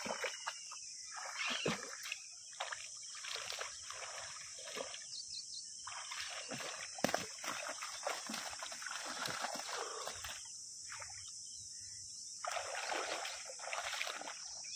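Shallow pond water splashing and sloshing in irregular bursts as a person wades and gropes for fish by hand.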